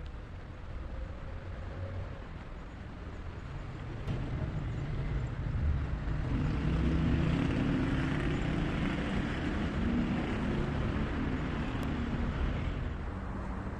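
A motor vehicle's engine passing by over a low rumble: it builds up about a third of the way in, is loudest through the middle, and eases off near the end.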